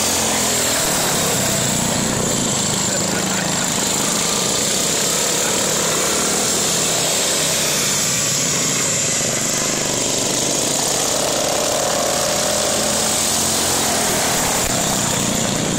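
Racing lawn mower engines running loud and steady, without let-up.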